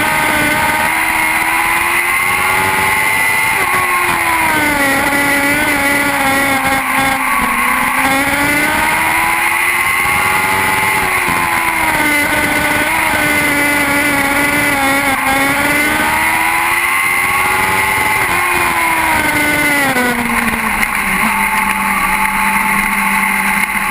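Lightning sprint race car engines running laps, the engine note rising and falling in long sweeps about every seven seconds. About 20 seconds in the pitch drops and settles to a steady lower note as the cars slow.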